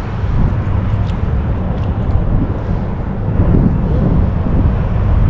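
Wind buffeting an open-air microphone, an uneven low rumble, with a few faint ticks over it.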